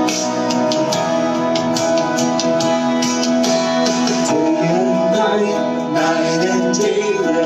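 Worship band music: strummed guitar over sustained chords in a steady rhythm, with a voice singing along in the latter part.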